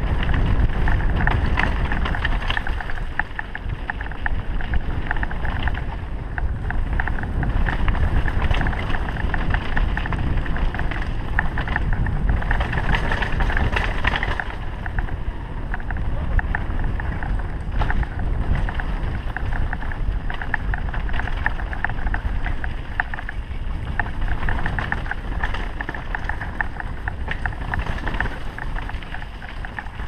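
Mountain bike riding fast down a dirt trail: a continuous rumble of tyres over dirt, with rattling from the bike and wind buffeting the microphone.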